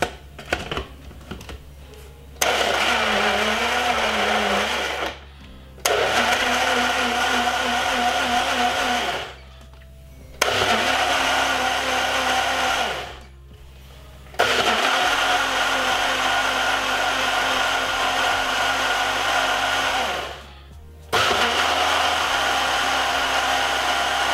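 Breville personal blender running in five separate bursts of two to six seconds, pulsed on and off by hand, blending chunks of ginger in water. The motor's pitch wobbles in the first burst and holds steadier in the later ones.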